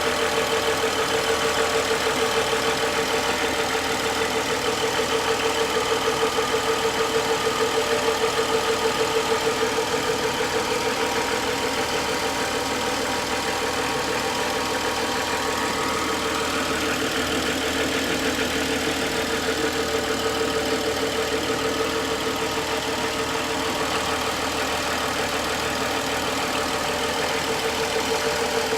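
BMW N55 turbocharged straight-six idling a few minutes after a cold start, with a regular knock running steadily through the idle. New-type VANOS units have not cured the knock.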